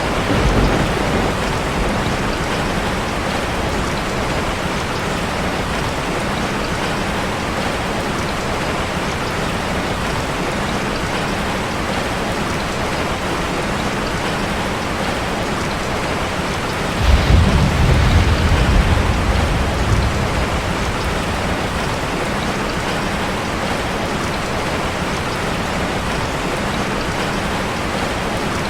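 Steady rain falling, with a short low rumble of thunder right at the start and a louder rumble of thunder about 17 seconds in that fades over about three seconds.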